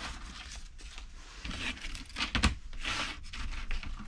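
Rustling and crinkling from handling the gaskets of a head gasket set and their packaging, with a few light knocks, the clearest about two and a half seconds in.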